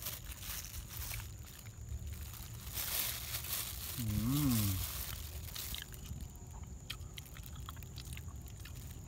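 Crinkling of a thin plastic bag handled by a baby monkey, with one short hummed 'mm' from a person about four seconds in. Soft chewing and small clicking bites follow as the monkey eats boiled banana.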